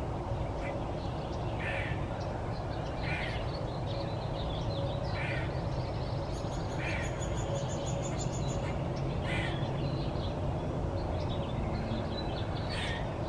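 Eastern gray squirrel giving its alarm call: about six short, harsh calls, one every one and a half to three seconds, the scream squirrels use as a predator alarm. A steady low rumble runs underneath.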